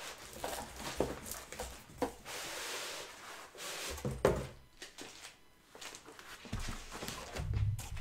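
Packaging being handled as a box is unpacked by hand: irregular rustling with a few sharp knocks and dull thunks, and a low thump near the end.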